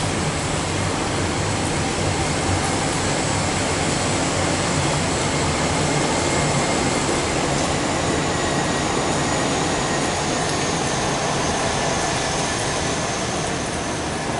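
Swiss Avro RJ regional jet's four turbofan engines running steadily as it taxis: a continuous rushing jet noise with a thin high whine that sinks slightly in pitch near the end.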